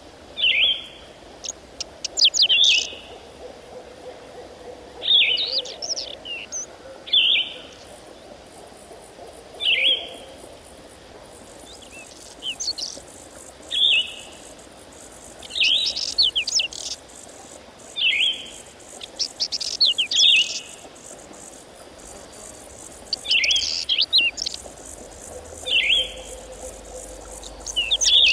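A small songbird singing: short phrases of high, falling chirps, repeated every two seconds or so with brief pauses between.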